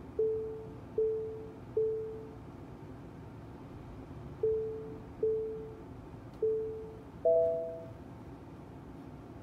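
Tesla Model S parking-sensor chime: single beeps of one pitch, about one every 0.8 s, pausing for about two seconds after the third, then a higher two-note chime about seven seconds in, over a faint steady hum. This is the proximity warning as the front of the car closes on an obstacle, with the two-note chime at the 'Stop' distance.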